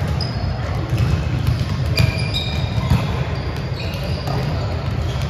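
Volleyballs being hit and bouncing on a gym floor, sharp irregular smacks, mixed with short high squeaks of shoes on the court and a steady low hum of the hall.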